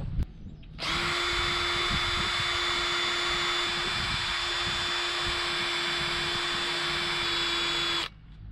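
Cordless drill running at a steady speed for about seven seconds, starting about a second in and stopping cleanly just before the end. A bit in its chuck is cleaning up the corroded rudder bearing housing.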